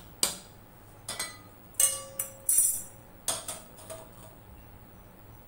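Stainless steel kitchen utensils clinking as they are handled: a perforated steel lid and a slotted steel spoon knock against each other and against a steel pot. There are about a dozen sharp metallic taps in quick clusters, some ringing briefly, and they die away after about four seconds.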